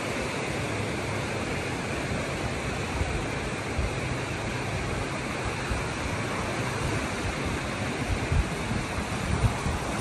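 Ocean surf washing onto the beach, a steady rushing noise. Near the end, wind buffets the microphone in low thumps.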